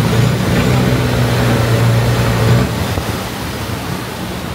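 Boat engine running with a steady low hum that drops away about two and a half seconds in, leaving a quieter steady rush of noise.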